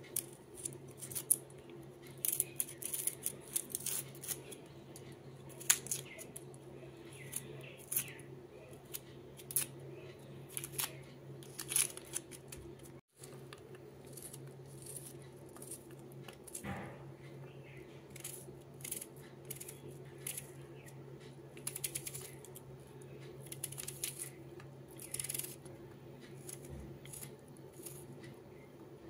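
Small kitchen knife peeling and chopping a red onion held in the hand, making many sharp, irregular crisp clicks as the blade cuts through, with pieces dropping into a small steel bowl. A steady low hum runs underneath.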